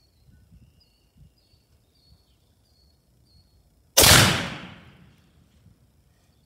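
A single rifle shot about four seconds in: a sharp, loud crack that fades away over about a second.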